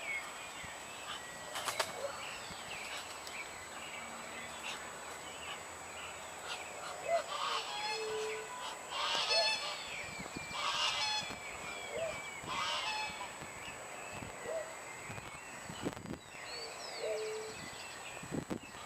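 Waterfowl calling at a lagoon: a chorus of short calls throughout, with four louder, harsher calls a couple of seconds apart in the middle.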